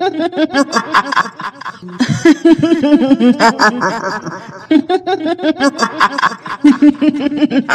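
A woman's high-pitched cackling laugh in the style of a kuntilanak ghost: fast runs of short 'hihihi' pulses that rise and fall in pitch, repeating in several long bursts with brief breaks.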